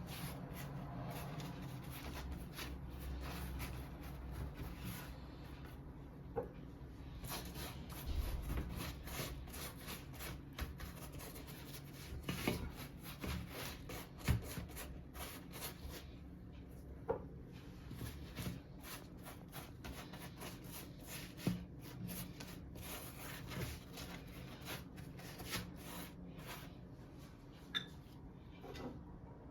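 Soft rubbing and handling sounds with scattered small clicks and a few light knocks, over a low steady hum.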